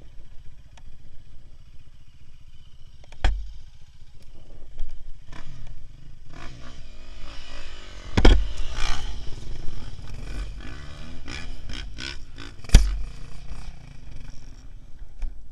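Handling noise from a rider wrestling a fallen KTM EXC dirt bike, picked up by a helmet camera: a steady low rumble with three sharp knocks, the loudest about eight and thirteen seconds in.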